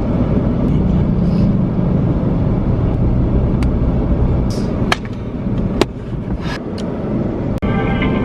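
Low, steady road rumble of a moving car heard from inside the cabin, with a few sharp clicks in the second half. Music comes in just before the end.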